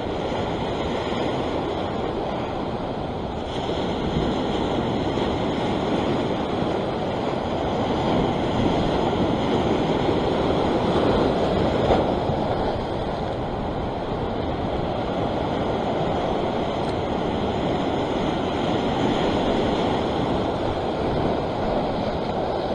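Sea surf washing and foaming against the rocks below, with wind on the microphone; the wash swells about four seconds in and again between about eight and twelve seconds.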